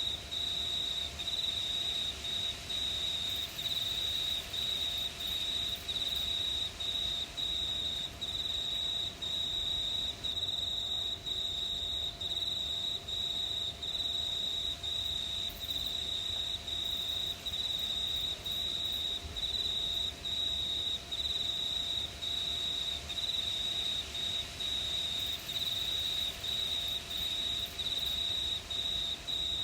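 Crickets chirping: one high, steady trill dominates, broken by a short gap about once a second.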